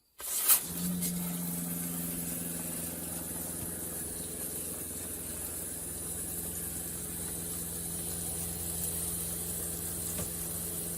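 Shower head spraying cold water into the washing tub of a portable twin-tub washer, a steady hiss of water over a constant low mechanical hum. It starts with a click about half a second in.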